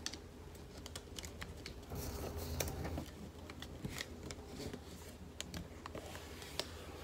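A sheet of origami paper being folded and creased by fingers against a tabletop: light rustling and scattered small taps and clicks, a little louder about two seconds in.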